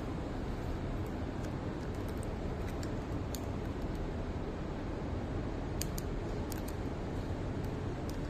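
Steady hiss with scattered light clicks and taps as the bowtie's small battery box is handled.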